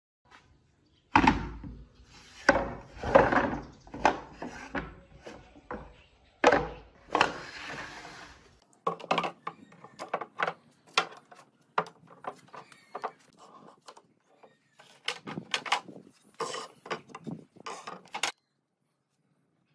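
Pieces of wood knocked and handled in a workshop: an irregular run of sharp wooden taps and thuds, with a couple of short scraping sounds, stopping shortly before the end.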